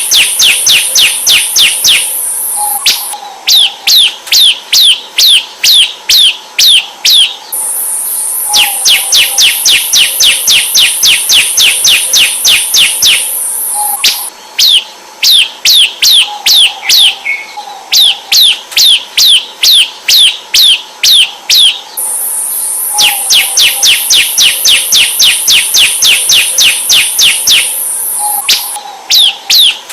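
Bar-winged prinia (ciblek) calling: a fast, even series of sharp downward-sweeping notes, about three a second. For long stretches a steady high buzz runs along with the notes.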